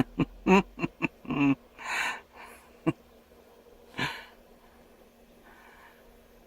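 A man's short breathy vocal sounds: brief voiced grunts and breaths with gasping exhalations, mixed with a few sharp clicks in the first three seconds. After that only a faint steady hum remains.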